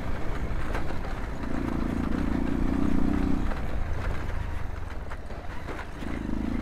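Motorcycle engine running as the bike is ridden along a rough dirt track. The engine note strengthens under throttle for a couple of seconds in the middle and again near the end, with a few light knocks.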